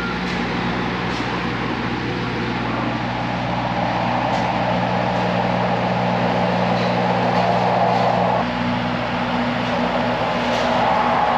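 A steady engine or motor running with an even hum, over outdoor background noise that grows a little louder about four seconds in.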